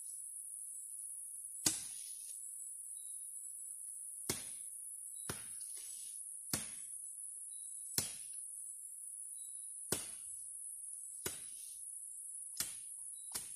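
Nine chopping strokes of a hand-swung blade cutting through grass and weeds, about one every second and a half. Underneath runs a steady high-pitched drone of insects.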